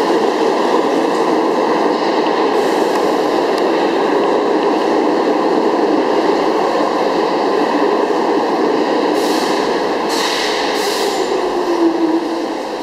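R46 subway train rolling into the station past the platform, a steady loud rumble of wheels on rail and running gear. Near the end a whine falls in pitch as the train slows, with a few short hisses.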